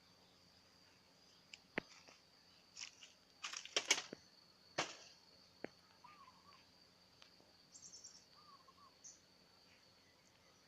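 Faint outdoor ambience: a steady high insect drone with a few bird chirps. A handful of sharp clicks and a short burst of scraping or rustling about three and a half seconds in is the loudest thing.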